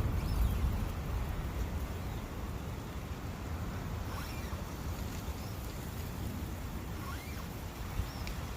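Forest ambience by a brook: a steady rush of wind with a low, gusting rumble, and a few faint, brief high chirps.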